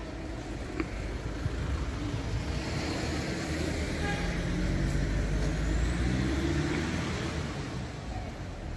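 A motor vehicle passing on the street: a broad road-traffic rush that swells to a peak about five to six seconds in, then fades.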